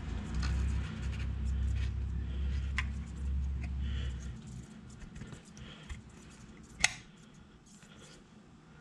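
Small clicks and light scraping of metal parts as a TH400 transmission valve body is handled and a part is fitted into it, with one sharper click about seven seconds in. A low rumble runs underneath for the first four seconds or so, then fades.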